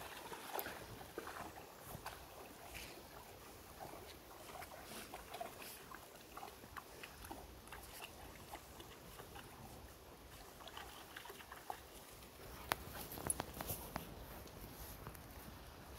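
A small dog splashing as it wades through a shallow stream, the splashes faint. Near the end, a few sharper footsteps on a gravel path.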